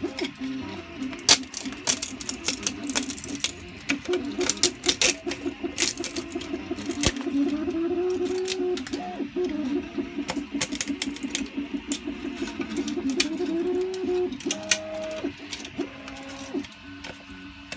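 A screwdriver tip scraping and prying 3D-printed plastic support material out of the inside of a printed part, giving irregular rapid clicks, scratches and snaps of plastic breaking away. Under it runs a steady humming tone that slowly slides up and down in pitch.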